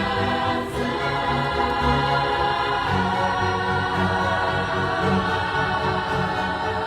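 Background music with choral singing: sustained voices held over a steady accompaniment.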